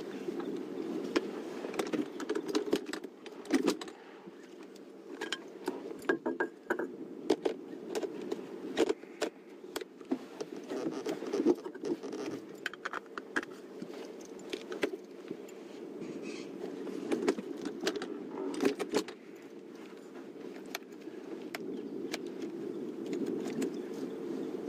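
Many irregular sharp cracks and snaps, like branches and brush breaking, as two African elephants shove and spar through scrub, over a steady low rumble.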